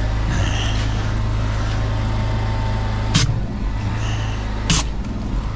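Drain-jetting unit's engine running steadily. Two sharp knocks come about three and five seconds in.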